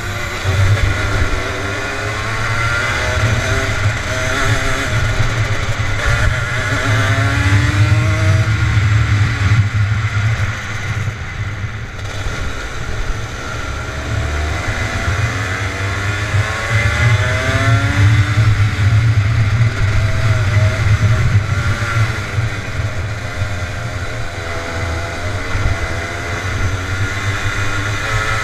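Rotax Max Junior 125 cc two-stroke kart engine at racing speed, heard from on board: the revs climb and drop again and again as the kart accelerates and brakes around the circuit.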